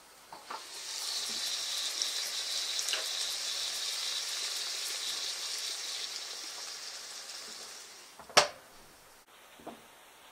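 Sliced bell peppers and oil sizzling in the heated bowl of a multicooker: a steady high hiss that fades out. Near the end the multicooker lid snaps shut with one sharp click.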